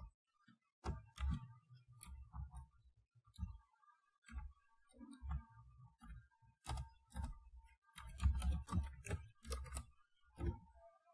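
Computer keyboard keys clicking in short irregular runs of typing, busiest about eight to ten seconds in.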